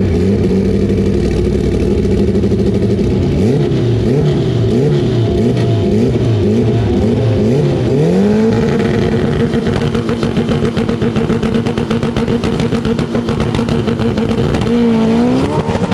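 Car engine revved hard: rapid up-and-down blips for several seconds, then pushed up to high revs and held there steadily, with a brief dip and recovery near the end.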